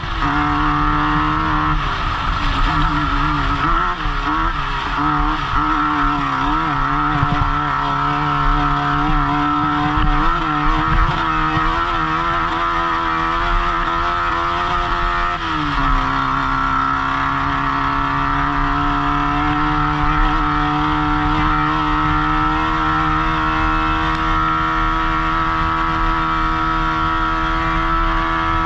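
Off-road race car engine running hard under load, heard from the driver's helmet. Its pitch wavers up and down for about the first fifteen seconds, then drops and holds steady for the rest.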